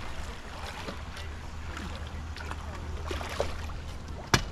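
Hooked salmon splashing and thrashing at the water's surface, over a steady low rumble, with one sharp knock about four seconds in.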